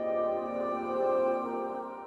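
Ambient background music of several overlapping held tones that swell and shift slowly in pitch.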